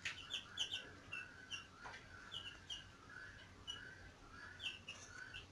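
Young chicks, about ten to twelve days old, peeping faintly: short high cheeps, each sliding down in pitch, a few a second.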